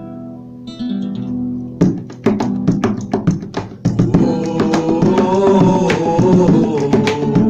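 Instrumental song intro on plucked guitar-like strings. It opens with held notes. Sharp plucked strokes come in about two seconds in, and the music grows fuller with a wavering melody from about four seconds.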